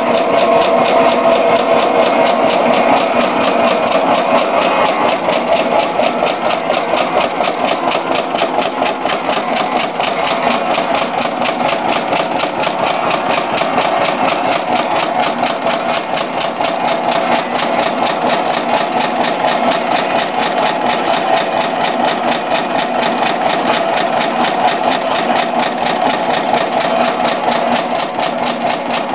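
Lister CS 3.5 hp single-cylinder diesel stationary engine running steadily with a fast, even beat, belt-driving a saw bench.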